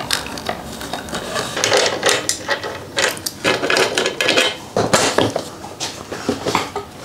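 Hands working on a Honda CRF250L's plastic bodywork, a side panel being unclipped and pulled free: an irregular run of clicks, knocks and rattles, with a few short squeaks of plastic near the middle.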